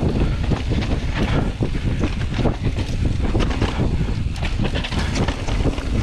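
Wind buffeting the microphone of a camera riding on a mountain bike as it descends a dirt trail, a steady low rumble. Over it come many quick clicks and knocks as the bike clatters over bumps and its tyres run through loose dirt and dry leaves.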